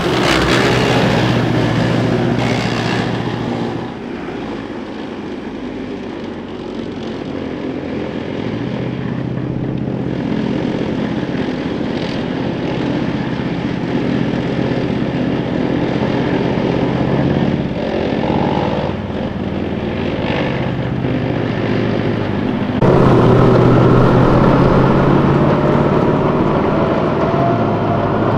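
CV90 tracked infantry fighting vehicles driving by: a steady diesel engine drone mixed with track noise, loudest as one passes close at the start, dropping about four seconds in, and jumping back up about 23 seconds in as more vehicles come head-on.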